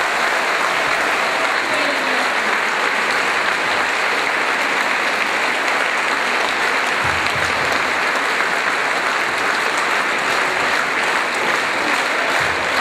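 Audience applauding steadily in a concert hall.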